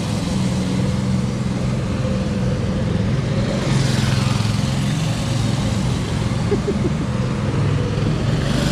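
Small go-kart engine running steadily while the kart is driven around.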